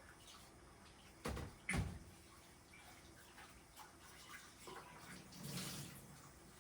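Dishes being washed at a sink: faint water splashing, with two knocks of dishware about a second in.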